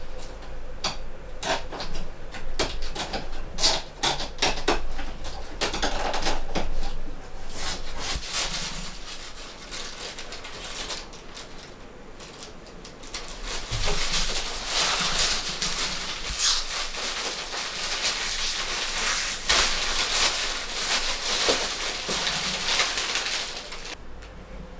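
Unboxing sounds: packing tape slit with a design knife and a cardboard box opened, with quick clicks and scrapes, then a long spell of packaging rustling as wrapped knitwear is unpacked.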